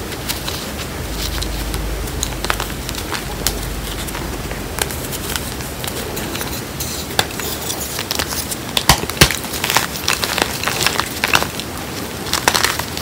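Hands crushing and crumbling chunks of reformed gym chalk mixed with cornstarch powder: soft crunching and crackling, with sharper snaps growing more frequent in the second half and one loud crack about nine seconds in.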